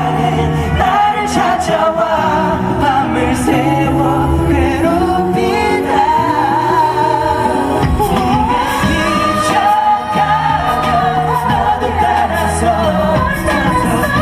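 Male pop vocalists singing live into handheld microphones over instrumental accompaniment with sustained bass notes, the sung melody carrying throughout.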